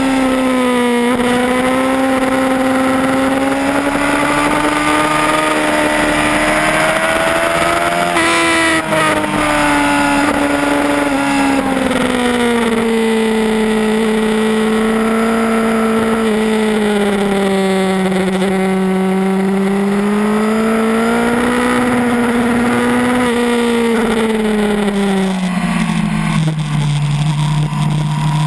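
Yamaha R1 inline-four sportbike engine running hard at speed, heard from on board. Its pitch swells and sags with the throttle, breaks briefly about a third of the way in, and drops lower near the end.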